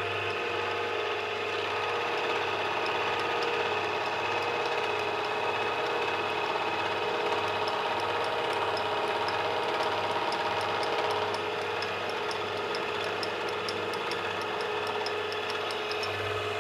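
Small electric machine tool running steadily, a low hum pulsing a little under twice a second under a faint regular ticking.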